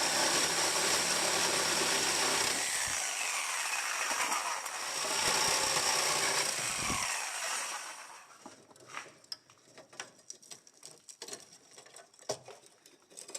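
A power tool runs steadily for about eight seconds, cutting the rusted trailing arm mount out of the car's unibody, then stops. Scattered light clicks and knocks follow.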